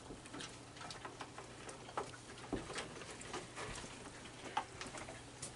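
Raccoons eating dry food: faint, scattered crunches, clicks and small taps at an irregular pace.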